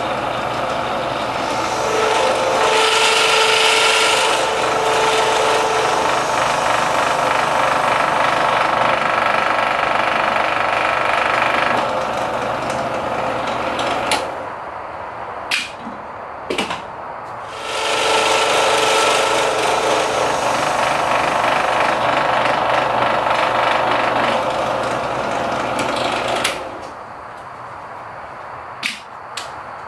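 A benchtop drill press runs as it bores holes through a knife-handle scale, with a steady motor-and-spindle whine in two runs. The first run lasts about twelve seconds and the second about nine. In the quieter gap between them there are a few sharp clicks.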